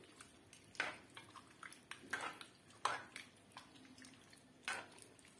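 A spoon stirring a wet stew of duck, onion and carrot in an aluminium kazan, with faint knocks and scrapes against the pot about once a second.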